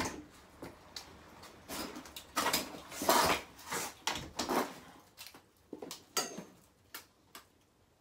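Handling and movement noise of a person coming in at the front door: rustling and shuffling with a few short rushing bursts, then scattered small clicks and knocks as a camera pole and a plastic spray bottle are handled.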